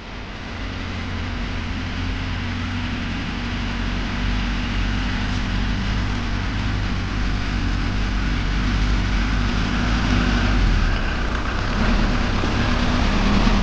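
Engine of a small construction vehicle running steadily, with a low drone; its level builds over the first few seconds, then it cuts off abruptly at the end.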